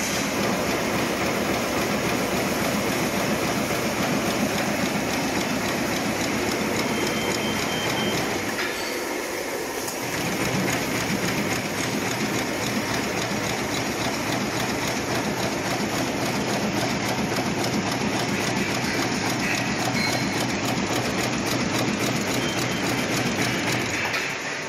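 Plastic bag-making machine (side-welding and bottom-sealing) running at speed: a steady mechanical clatter from its rollers, film feed and sealing and cutting heads, with a fast, even clicking.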